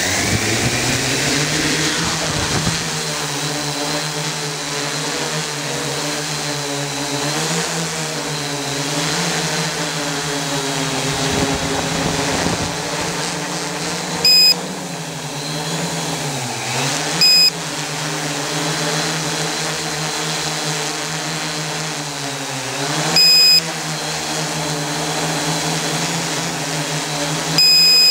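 Eight electric motors and propellers of an Oktokopter XL octocopter running in flight, heard from on board: a steady buzzing hum of several pitches that wavers and dips briefly a few times as the throttle changes. Four short, loud beeps sound about halfway through and near the end.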